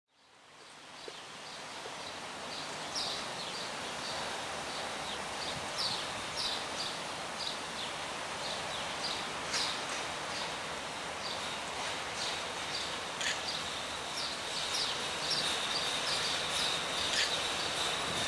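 Songbirds chirping in short repeated phrases over a steady hiss of light rain, fading in over the first second.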